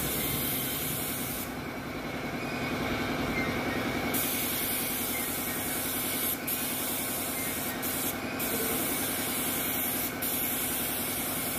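Gravity-feed compressed-air spray gun spraying finishing primer onto a motorcycle fuel tank: a steady hiss of air and atomised paint. The hiss softens for a couple of seconds about a second and a half in, and breaks off briefly a few times later.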